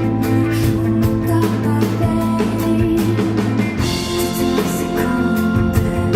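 Rock band playing a song: guitar over a steady drum kit beat.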